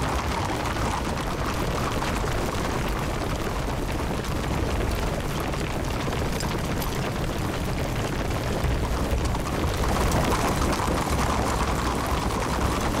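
A steady rumbling din of a cavalry charge: many horses' hooves galloping on stone and armoured soldiers running, blurring into one dense roar.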